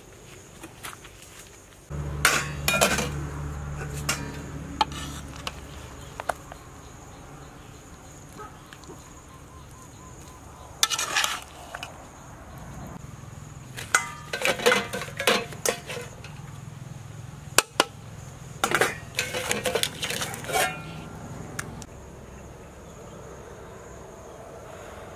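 Metal pot and utensils clinking and clattering in several short bursts of handling, over a steady high drone of insects.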